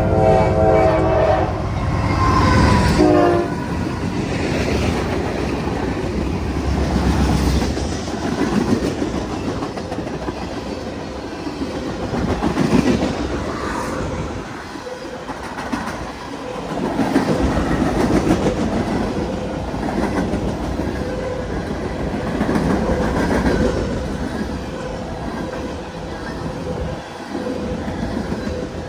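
Norfolk Southern manifest freight train. The locomotive air horn sounds a chord of several tones for about the first two seconds, with a shorter blast about three seconds in. Then the train rolls by with a steady rumble and the clickety-clack of wheels over rail joints.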